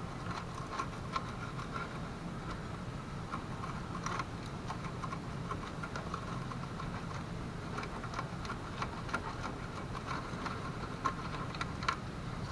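Many irregular light clicks and ticks over a steady low hum.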